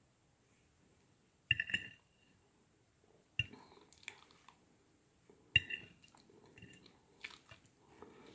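An eating utensil clinking against a dish three times, about two seconds apart, each clink ringing briefly, with faint chewing sounds between.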